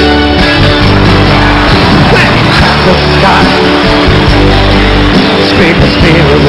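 Live folk-rock band playing a loud instrumental passage, with acoustic guitar and keyboards over bass and no singing.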